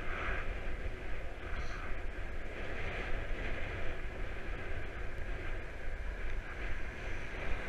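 Wind rushing over the microphone of a camera on a moving bicycle, a steady low rumble with road noise over it.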